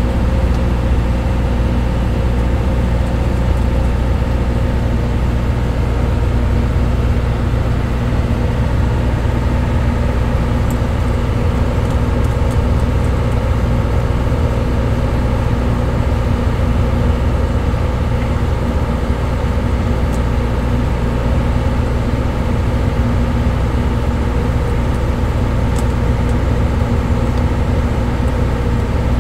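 Steady low machinery drone with a constant hum and several held tones, typical of a ship's engine running.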